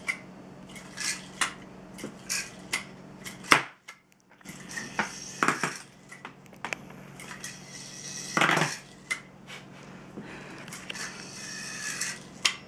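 Yo-yo being thrown and caught: a series of sharp clicks and short clattering rattles. The sharpest click comes a little over three seconds in, and a longer clatter about eight and a half seconds in.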